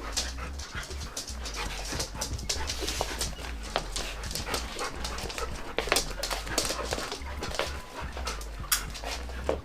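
Pet dogs panting and moving about, with many scattered short clicks and rustles.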